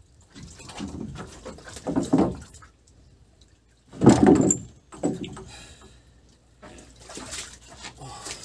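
Wet splashing and knocking in the bottom of a wooden boat as large wels catfish are pulled out of a hooped fyke net. It comes in several bursts, the loudest about four seconds in.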